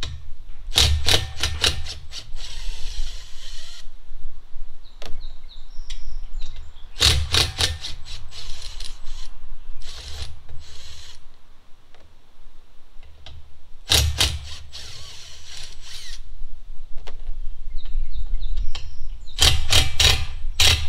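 Cordless power driver running in four short bursts, each a rapid clicking, as it backs self-tapping screws out of the trailer's roof rack.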